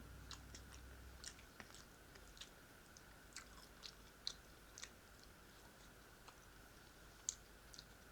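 A person chewing food with the mouth close to the microphone: soft, irregular wet clicks and smacks, about one or two a second.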